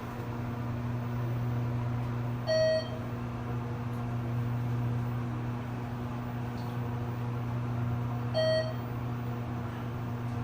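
ThyssenKrupp hydraulic elevator car running with a steady low hum while it travels between floors. Two short electronic beeps about six seconds apart, the car's floor chime, sound about two and a half seconds in and again near the end.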